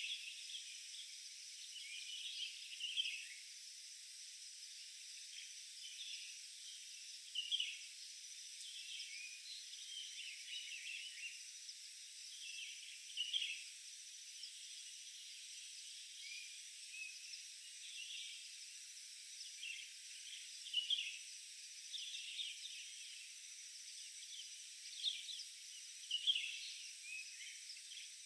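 Forest ambience: short, scattered bird chirps every second or two over a steady, high-pitched insect drone.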